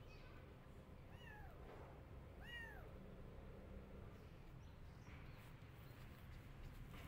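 A kitten meowing twice, two short high calls that rise and fall, about a second apart, faint over a low steady background hum.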